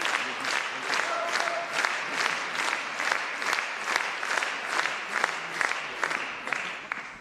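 Theatre audience applauding in unison, clapping in a steady rhythm of about two to three claps a second.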